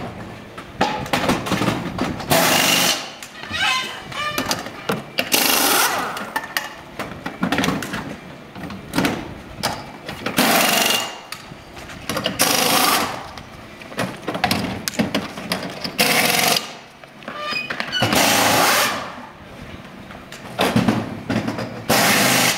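Pneumatic wheel guns (air impact wrenches) firing in repeated short blasts, loosening and tightening wheel nuts during a race-car tyre change.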